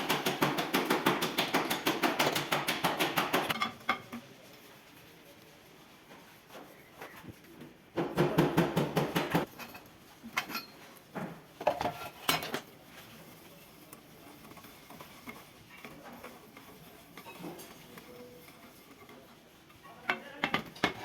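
Rapid metallic rattling in two bursts, the first lasting a few seconds and the second a little over a second, with scattered single metal clinks and knocks between them, as of tools working on metal parts.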